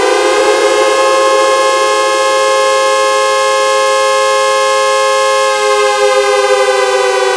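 Synthesized air-raid-style siren sound effect made in Audacity: it reaches top pitch just after the start, holds a steady tone for about five seconds, then begins slowly winding down.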